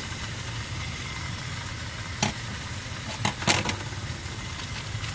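Steady low rumble of storm-strength wind and a spinning propeller, likely wind turbine blades, heard through the tent walls. A few short clacks of metal tongs and chopsticks on a frying pan come through it, about two and three and a half seconds in.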